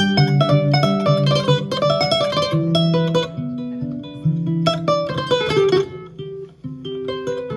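Solo kora, the West African calabash harp-lute, played with quick runs of plucked notes over a repeating low bass line. The playing thins out briefly about six seconds in.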